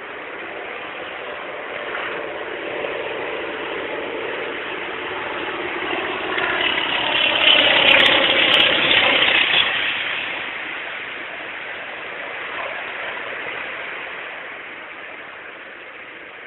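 Propeller aeroplane flying past: its engine drone grows louder, peaks about halfway through, then fades as it moves away.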